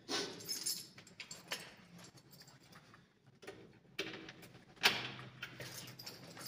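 A bunch of keys jangling and a key scraping and clicking in a metal apartment-door lock as it is tried, with a sharp click about five seconds in.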